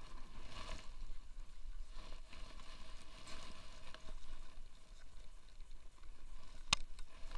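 Faint rustling and knocking of fishing gear and bags being handled and packed, over a steady low rumble, with one sharp click near the end.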